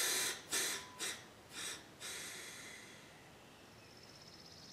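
Compressed air hissing from an air-compressor blow nozzle: a blast dying away at the start, three short puffs, then a longer hiss that fades out. Near the end a faint, high, pulsing whir begins.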